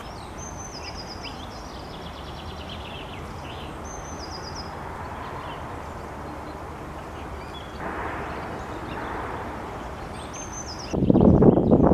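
Common starlings calling: short high chattering rattles and whistles, repeated several times over steady background noise. About a second before the end, a sudden loud rush of wind-like noise takes over.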